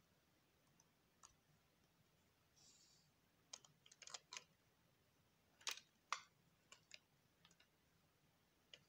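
Faint scattered clicks and taps of a small wooden toy figure against a plastic BRIO train car as it is pushed into the car's seat, in two short clusters about three and a half and six seconds in.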